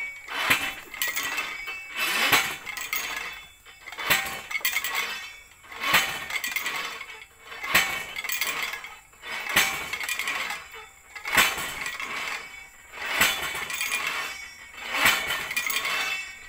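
Hand-driven well rig pounding a 2-inch well pipe into the ground: a weight hoisted by rope over a bamboo-tripod pulley is dropped on the pipe, giving a metallic clank with a short ring about every two seconds.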